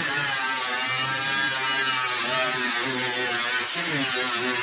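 A handheld power cutting tool runs with a high-pitched, buzzy whine as it cuts shallowly through the rusted outer sheet-metal skin of a pickup's bedside, its pitch wavering as it bites.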